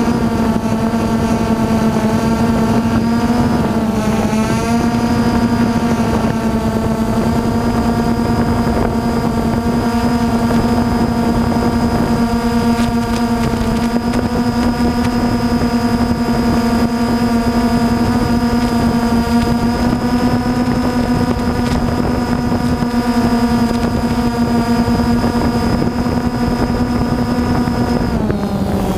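Multirotor drone's motors and propellers buzzing steadily in flight, heard from the camera on board. The pitch wavers briefly about four seconds in and drops near the end as the motors change speed.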